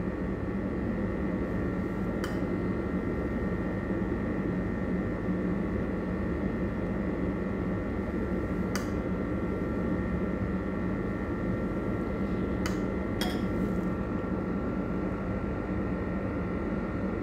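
Steady background hum with a few steady high tones in it. Over it come four faint, sharp clicks of a metal spoon touching the plate as dressing is spooned over the chicken.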